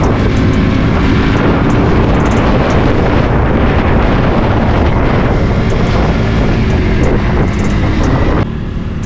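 A motorcycle being ridden at road speed: a loud rush of wind over the microphone with the engine running underneath. The noise drops suddenly near the end.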